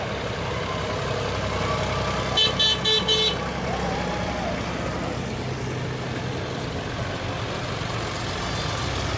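Vintage Massey Ferguson tractor engine running steadily at low speed as the tractors pass. A horn toots four times in quick succession about two and a half seconds in.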